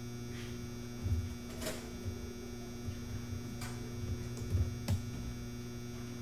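Steady electrical mains hum on the sound system, with a few soft knocks and clicks scattered through it.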